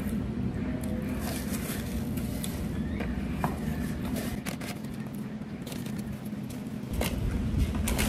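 Cardboard fast-food boxes and a paper bag being handled, with scattered scrapes, crackles and small clicks, along with chewing, over a steady low rumble.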